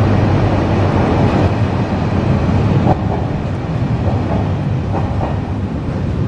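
A loud, steady, deep rumbling noise with no clear rhythm.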